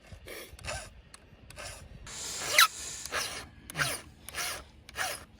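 Hand file stroking across a chainsaw chain's cutter to sharpen it: a rhythmic series of about nine short rasping strokes, one longer stroke near the middle giving a brief squeal.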